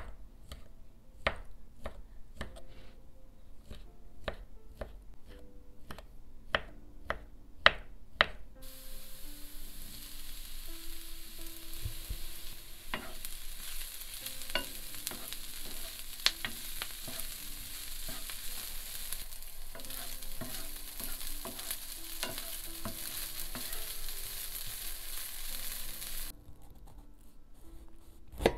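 A chef's knife chopping sausage on a wooden cutting board, the blade knocking the board about twice a second. Then diced sausage and onion sizzling in oil in a frying pan, a steady hiss with occasional clicks of a wooden spoon stirring them. Near the end the knife cuts into a bell pepper on the board.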